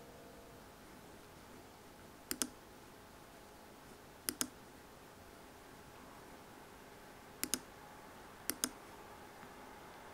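Computer mouse button clicking four times, each a quick double click, a couple of seconds apart, as drop-down menu items are chosen.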